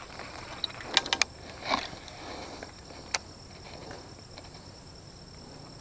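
Steady high-pitched insect drone from the swamp-side vegetation, with a quick cluster of three sharp clicks about a second in, a short rustle just after, and one more click around three seconds in.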